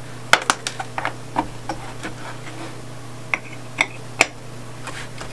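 Small hard-plastic toy parts clicking and tapping together as a miniature cat-tree house is fitted together by hand: a scatter of sharp, irregular clicks.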